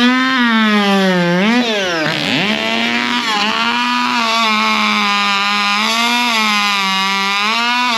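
Modified two-stroke race chainsaw running flat out. Its pitch steps up and down as the chain loads and unloads in the cut, with a sharp dip and recovery about two seconds in.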